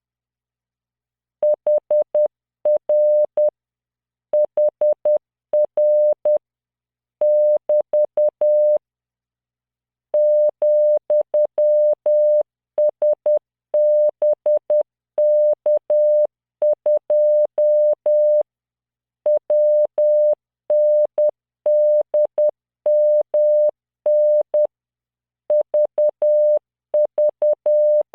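Computer-generated Morse code tone at 600 Hz sending random five-character groups of letters, figures and punctuation at 10 words per minute, dots and dashes separated by short pauses between groups. It begins about a second and a half in.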